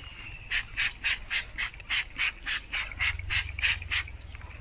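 Hand sprayer pumped or squeezed rapidly, giving short hissing spurts of mist about four a second, stopping near the end.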